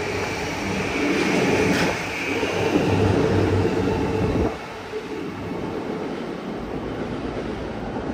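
JR East E235-1000 series electric train pulling out past a station platform: wheels and running gear rumble, with the thin whine of its Mitsubishi full-SiC VVVF traction drive. The sound falls away sharply about four and a half seconds in as the last car clears, leaving a fainter rumble as the train moves off.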